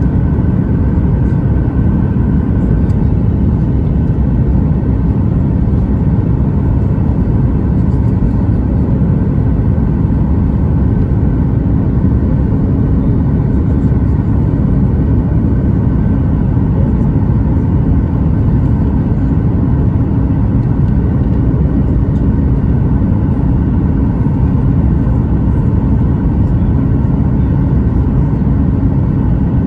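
Steady cabin noise of a Boeing 737 MAX 9 in the air, a deep even rumble of CFM LEAP-1B engines and airflow heard from inside the cabin, with a faint steady hum above it.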